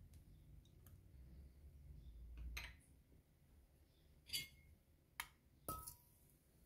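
Quiet kitchen handling sounds: about four faint clinks and knocks of a small ceramic dish and a metal spoon against a metal pot as butter is put in, the last clink ringing briefly.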